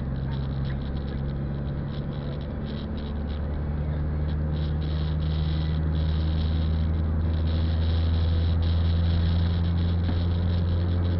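Car engine and tyre noise heard inside the cabin while driving on a wet road: a steady low hum whose pitch steps up a little about three and a half seconds in, then grows gradually louder over the next few seconds.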